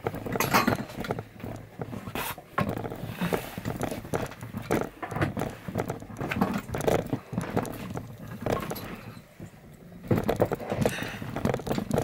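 Irregular knocks, clicks and rustling from equipment being handled and adjusted close to the microphone.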